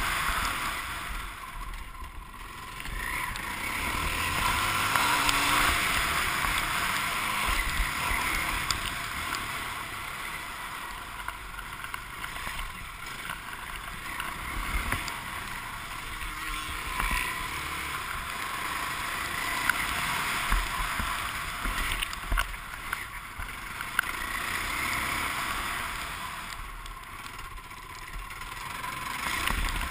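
Dirt bike's engine heard from the rider's helmet camera, revving up and dropping off again and again as the bike accelerates and slows around a motocross track, blended with wind rushing over the microphone.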